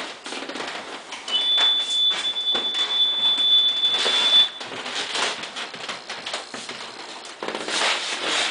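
A steady high-pitched electronic beep starts about a second in and holds for about three seconds, then stops. It sits over scattered footsteps and shuffling.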